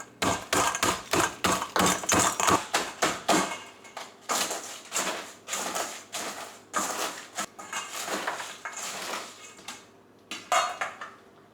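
Oreo cookies being crushed in a bowl by hand, with quick repeated pounding strokes crunching the biscuits and knocking against the bowl, about three or four a second at first, then in uneven bursts with a short pause near the end.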